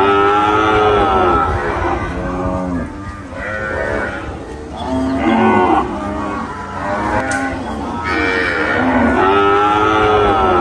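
Several cattle mooing: a run of calls at different pitches, some overlapping, with long drawn-out moos near the start and near the end and shorter ones between.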